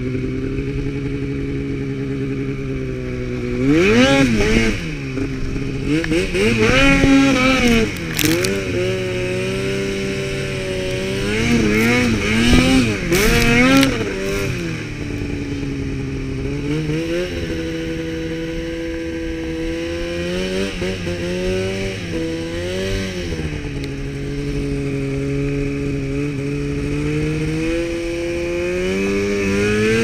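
Snowmobile engine running while riding through deep snow, revving up and down again and again, the loudest revs about four and seven seconds in and again around twelve to fourteen seconds in, with steadier running between them.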